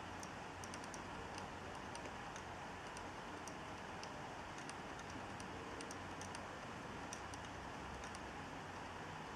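Hard disk drive making a clicking noise: faint, irregular sharp clicks, a few a second and some in quick pairs, over a steady hiss.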